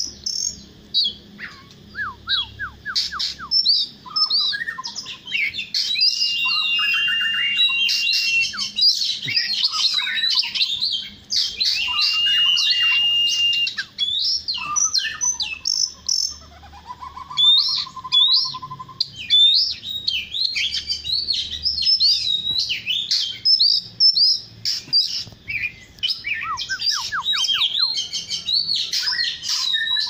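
Oriental magpie-robin singing a long, varied song of sweet whistles, quick trills and sliding notes, with a couple of long held whistles.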